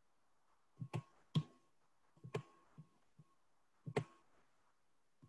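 Computer mouse clicking a handful of times, some in quick pairs, with near silence between the clicks, while screen sharing is being started.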